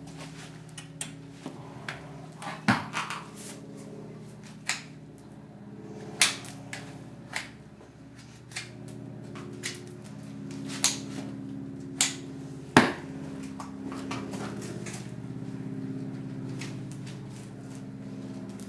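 Horse's shod hooves knocking and scraping on a concrete stable floor as its feet are lifted and set down, a string of irregular sharp clacks, several of them loud, over a steady low hum.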